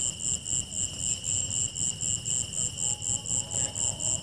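Crickets chirping: a high, pulsing chirp about four times a second over a steady, lower high-pitched trill.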